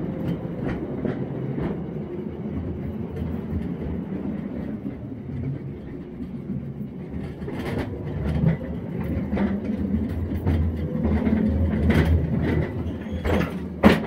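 Mancha battery-electric mine locomotive rolling along narrow-gauge rails: a steady low rumble and rattle of its wheels on the track, with scattered clicks over the rail joints. It grows louder in the second half, and there is a sharp knock near the end.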